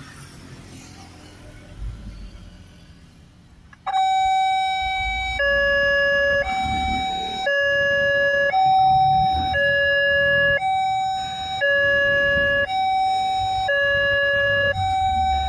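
Railway level-crossing warning alarm: after a few seconds of passing road traffic, an electronic two-tone siren switches on suddenly about four seconds in and alternates high and low about once a second. It warns of an approaching train as the crossing lights flash and the barriers close.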